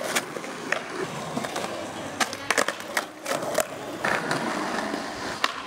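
Skateboard wheels rolling on smooth concrete, with repeated sharp clacks of the deck popping and landing during flatground tricks.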